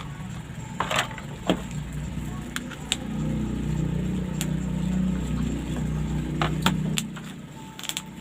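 Scattered light clicks and taps of plastic parts being handled and fitted together, over a low rumble that swells from about three seconds in and fades near the end.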